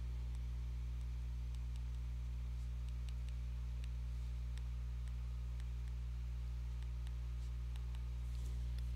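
Steady low electrical hum, with faint scattered ticks of a stylus tapping on a tablet's glass screen while handwriting.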